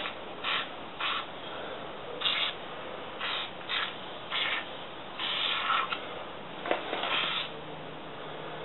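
Aerosol can of Liquid Wrench penetrating oil sprayed in a series of short hissing bursts, with one longer spray about five seconds in, soaking a rusted-on brake rotor to loosen it.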